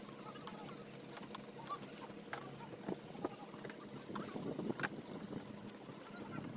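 Sounds aboard a small fishing boat on the water: a low steady hum with scattered clicks and knocks, the loudest knock near the end.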